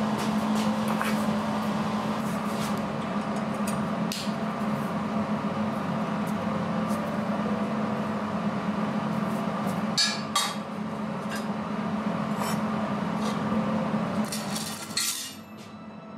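Steel parts and chain clinking and knocking on a steel worktable as they are handled, a few sharp clinks at a time, over a steady hum.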